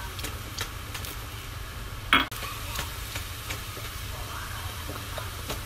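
Diced onions sizzling and crackling softly in a dry frying pan over a gas flame, sweating with only a splash of water and no oil yet. A single sharp clatter about two seconds in.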